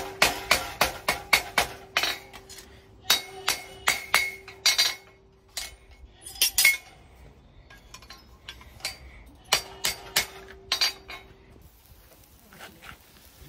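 Hammer blows on a steel horseshoe against an anvil, a fast run of ringing metallic strikes at about four a second for the first five seconds, with a few more strikes in the middle and another short run about ten seconds in, as the shoe is shaped. The anvil rings on under the blows, and the strikes give way to quieter handling near the end.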